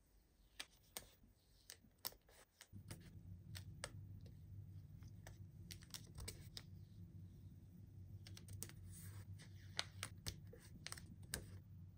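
Faint, irregular clicks and crackles of paper stickers being peeled off their glossy backing sheet and pressed onto the pages of a sticker book. A low steady hum comes in about three seconds in.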